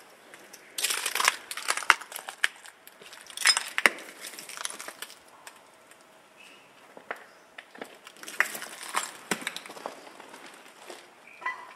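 Footsteps crunching over rubble and broken debris, coming in a few irregular bursts of crunches and crackles.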